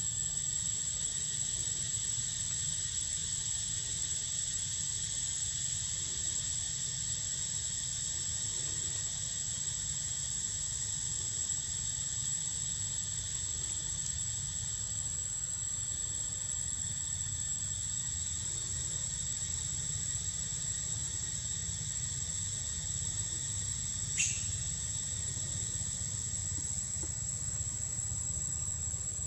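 Steady high-pitched drone of forest insects, unbroken, over a low steady rumble, with one short click near the end.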